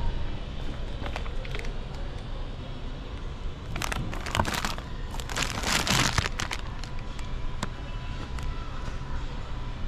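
Plastic candy bag crinkling as it is handled, in two spells of about a second each near the middle, over a steady background hum.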